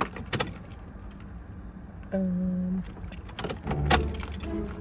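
Keys jangling and clicking, with a brief steady hum about two seconds in and a thump just before the end.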